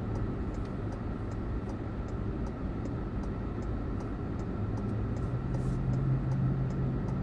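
Road and engine noise heard from inside a moving car's cabin, a steady rumble with a low hum that swells slightly about five seconds in. Faint regular ticking runs under it, about two ticks a second.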